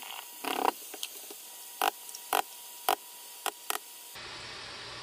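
Condensed cream of mushroom soup sliding out of its can into the Instant Pot's stainless steel inner pot with a soft squelch, then about five short, sharp taps as the can is emptied.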